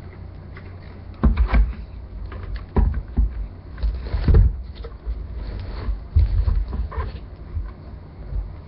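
Handling noise while a speaker is set up: irregular clicks, knocks and low thumps as things are moved about on a surface.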